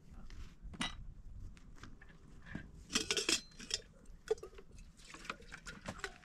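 Kitchenware being handled: scattered clinks and knocks of a kettle, jug and dishes, with a short burst of clatter about three seconds in.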